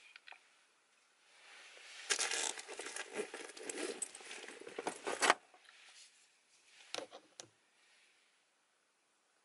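Close handling noise: rustling and crinkling with many small clicks for a few seconds, ending in a sharp click. A couple more clicks follow about two seconds later.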